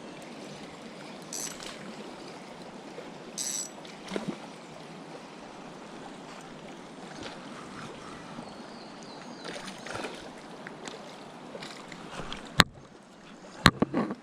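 Steady rush of flowing river water, with a few brief hissing bursts early on and three sharp knocks near the end.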